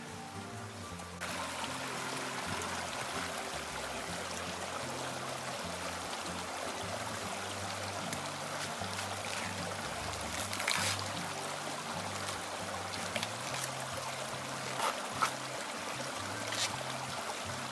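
A shallow forest stream trickling over stones starts about a second in, under background music of low, stepped notes. A few short sharp clicks sound in the second half.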